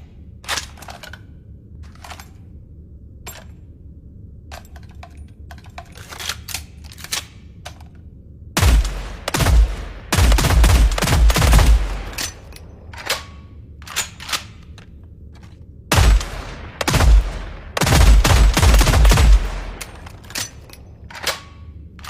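Fieldmaster HR-10 rifle's built-in gunfire sound effect: two long bursts of rapid machine-gun fire, each about three to four seconds, the first about eight seconds in and the second about sixteen seconds in. Single sharp clicks come in between.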